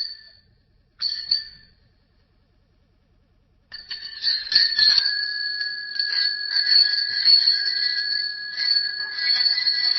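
Bicycle bell rung twice, each ring fading away, then after a pause of about two seconds a bicycle bell rung rapidly and without stopping.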